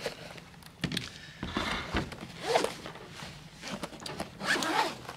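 Handling noise from a black zippered hard case being lifted out of its cardboard box and set down on a glass counter, with a few knocks and thuds, then the rasp of its zipper being pulled open near the end.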